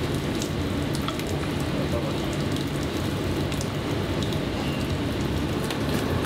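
Water boiling hard in a noodle-cooking pot: a steady bubbling hiss with many small pops and splashes as ramen noodles cook.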